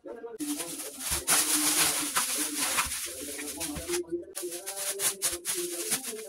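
Doves cooing steadily in the background. Over them comes a loud rustling for about three seconds, then after a brief pause the crinkling and crackling of a plastic bag being handled.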